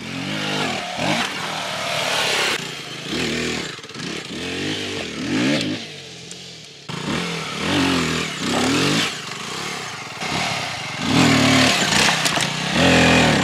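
Aprilia RX 125 motorcycle's single-cylinder engine revving up and falling back again and again as the bike is picked slowly over rough off-road obstacles.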